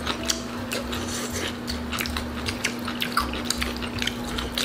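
Close-miked eating: wet chewing and mouth smacking of saucy food, with many irregular small clicks, over a faint steady hum.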